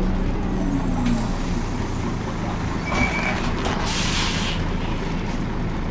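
Volvo B10BLE bus engine running with its cooling fan on, the engine note falling in the first second or so. A short hiss of air about four seconds in.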